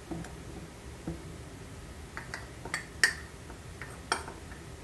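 Sifted flour being tipped and scraped from a small bowl into a glass mixing bowl with a metal spoon: about half a dozen light clicks and taps of spoon and bowl against the glass in the second half, the sharpest about three seconds in.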